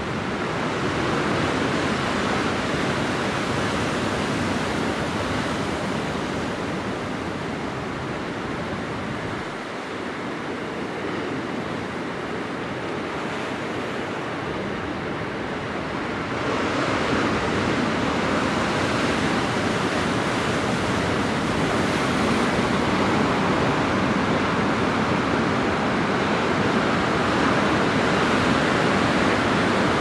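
Sea surf washing in over rocks and sand, a continuous rush of water. It swells louder about halfway through as a larger wave breaks across the rocks.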